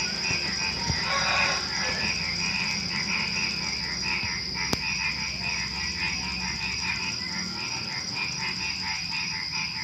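A dense chorus of frogs croaking, many rapid pulsed calls overlapping, over a steady high trill of crickets. A single sharp click sounds about halfway through.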